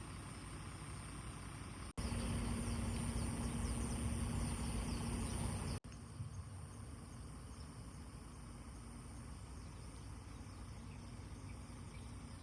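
Quiet outdoor ambience with a faint steady high insect drone. From about two seconds in to about six seconds in, the Kawasaki ZX-10R's inline-four engine idles louder with a steady low hum, and the sound cuts abruptly at both ends of that stretch.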